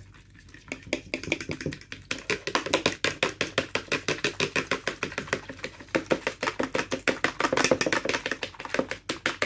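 Fork whisking two eggs in a coating tray: quick, even clicks of the fork against the tray, about six a second. They start in earnest about two seconds in.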